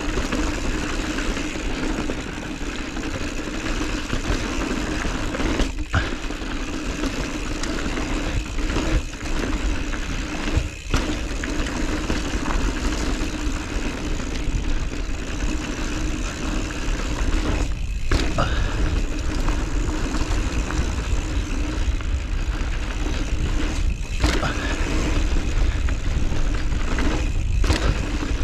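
Mountain bike rolling down a loose dirt trail, heard through a ride camera: steady wind rumble on the microphone mixed with tyre and trail noise, with a few brief sudden dips in the noise.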